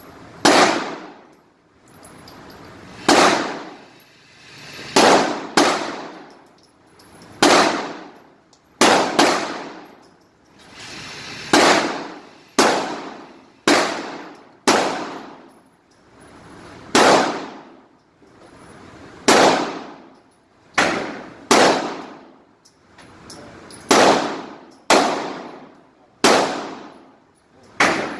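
Handgun shots fired one at a time in a steady string, roughly one a second with a few short gaps, each crack followed by a ringing echo inside an indoor shooting range.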